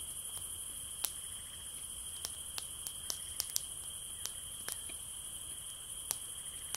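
Insects chirring in two steady high-pitched tones, with a wood campfire crackling in irregular sharp snaps over it.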